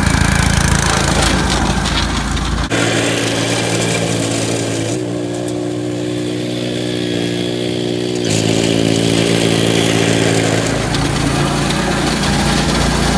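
Small gasoline engine of a walk-behind core aerator running steadily while the machine is pushed across a lawn pulling soil plugs. Its pitch shifts a little a few times.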